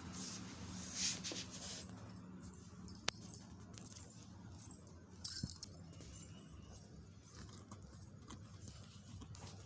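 Scattered light clicks, taps and rattles of small hard objects, with a sharp tick about three seconds in and a louder clatter just past five seconds.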